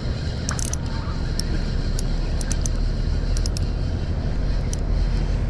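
Steady low rumble of wind on the action camera's microphone, with scattered light ticks from the spinning reel as a squid is reeled in on an ultralight rod.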